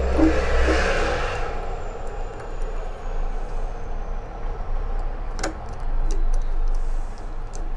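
Small clicks and handling noise of screws being fitted into a night latch cylinder's back plate, with one sharp click about five and a half seconds in, over a steady low rumble.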